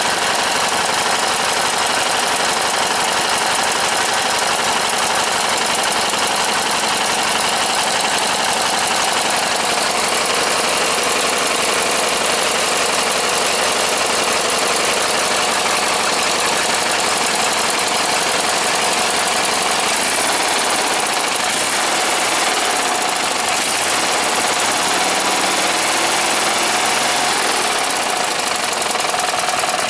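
Briggs & Stratton riding-mower engine running steadily, its pitch wavering for a few seconds in the last third.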